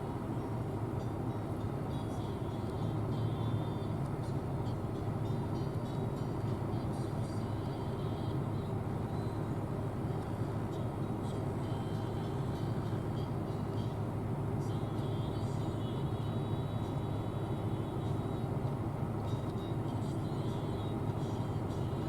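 John Deere S680 combine harvester running steadily while harvesting corn, a constant deep engine and machinery drone. A faint high whine comes and goes over it.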